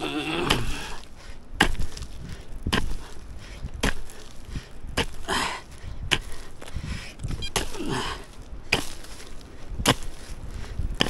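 Hand digging tool chopping into the ground in a steady rhythm, about one hard strike a second.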